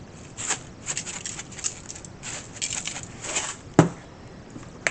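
Seasoning being applied to and worked into chicken: a run of short, scratchy rustling strokes, with one sharp knock about four seconds in.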